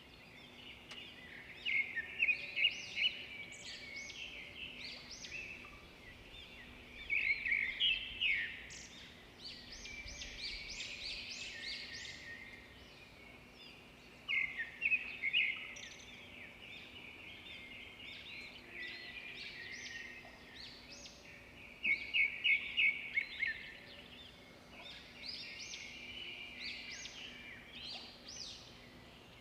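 A flock of small birds chirping and twittering, many calls overlapping, swelling into louder flurries every few seconds, over a faint steady hum.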